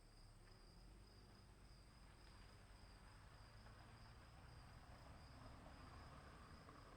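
Faint, steady chorus of crickets: a continuous high trill that never breaks.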